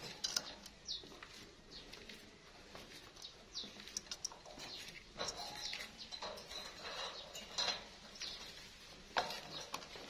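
Plum-headed parakeet moving about its wire cage: scattered clicks and scrapes of beak and feet on the wires and feeder cup, with a few short, high, soft chirps, most of them between about five and eight seconds in.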